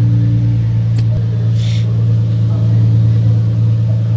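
Infiniti G37's 3.7-litre VQ V6 idling steadily and loudly, running through test pipes in place of the catalytic converters. A brief hiss comes about a second and a half in.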